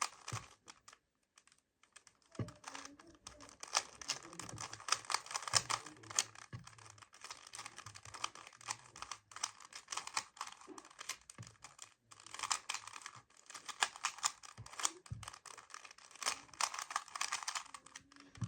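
Plastic 3x3 puzzle cube being turned quickly by hand during a timed solve: rapid runs of fine clicks, starting about two seconds in and easing off briefly in the middle.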